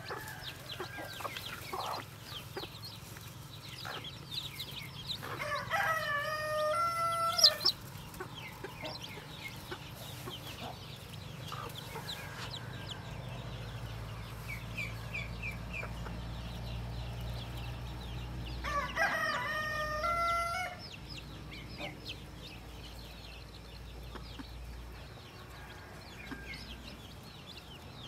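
Newly hatched chicks peeping continuously in short, high, falling notes, with a rooster crowing twice, each crow about two seconds long and louder than the peeps.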